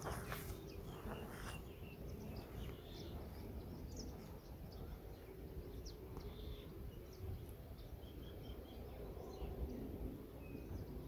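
Outdoor background of scattered short bird chirps over a low wind rumble, with a faint steady hum. A couple of brief rustling snaps come in the first second or two as spinach leaves are picked by hand.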